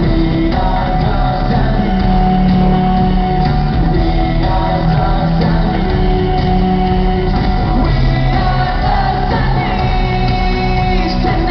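Live rock band playing loudly with a lead vocal and shouting, heard from the crowd in an arena.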